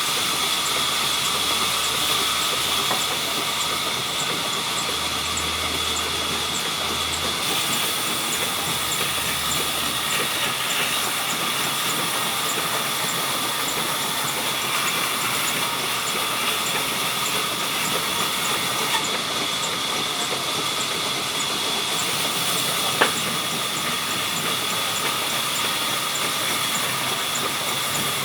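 Sawmill saw running steadily: a dense hissing rush with a steady high whine over it, and a faint high tick repeating at an even pace. One sharp click sounds late on.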